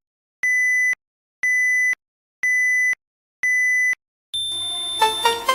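A steady, high electronic beep, about half a second long, sounding once a second four times like a countdown. Electronic music starts near the end.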